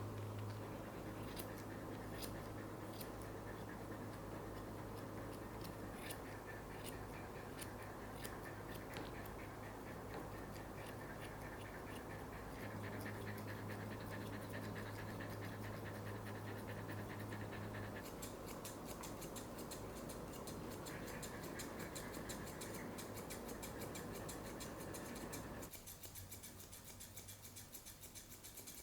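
Grooming scissors snipping through a Shetland sheepdog's coat in many small, irregular snips, over a low steady hum that stops partway through.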